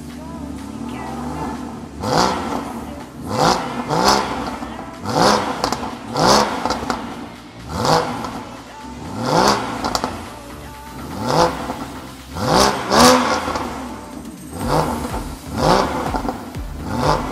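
Porsche Boxster 981 GTS's 3.4-litre flat-six engine revved in a series of short throttle blips, about one a second. Each rises quickly in pitch and falls away again.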